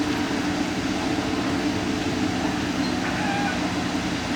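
Diesel engine of heavy machinery running steadily at constant speed, a continuous even drone with no revving or change.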